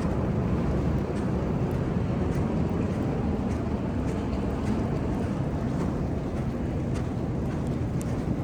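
Steady low rumbling wind buffeting the microphone in a snowstorm, with a few faint ticks.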